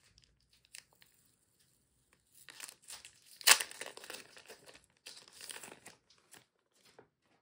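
Clear plastic sleeve crinkling as it is opened and a stack of photo cards is slid out of it. The crinkling starts about two and a half seconds in, with one sharp, loud crackle about halfway through, and dies away about a second before the end.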